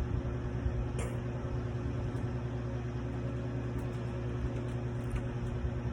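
Steady low hum of background room noise with a few constant low pitches, and a faint click about a second in.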